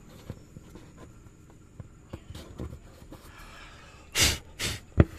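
Light scratching and clicking of fingers picking at the remains of a torn loudspeaker dust cap around the cone's centre. Near the end come two short breathy puffs and one sharp click.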